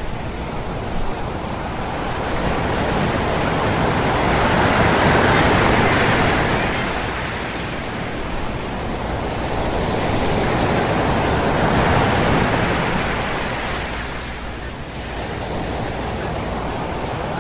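Ocean waves washing in, a steady rush that swells twice, about six seconds apart, and eases between.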